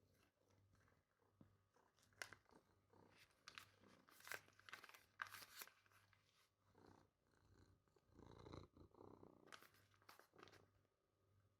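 Soft, close clicks, taps and rustles, with a low hum that comes and goes in stretches beneath them.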